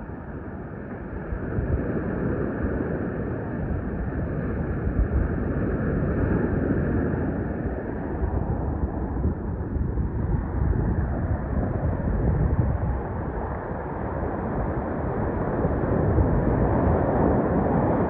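Ocean surf washing on the beach with wind rumbling on the microphone: a continuous rushing noise, heavy in the lows, that slowly swells and eases.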